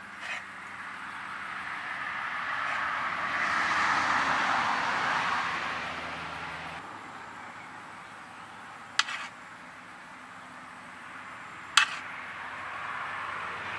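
A metal spoon clinking sharply against a metal pan and plates three times: once at the start, then twice later, a few seconds apart. In the first half a steady hiss swells and fades.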